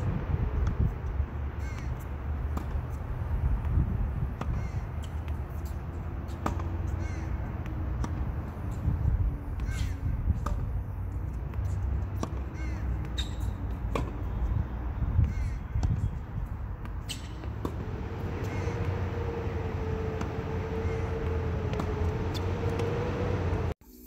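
Tennis balls struck with a racket and bouncing on a hard court: sharp single hits every few seconds over a steady low rumble, with birds calling.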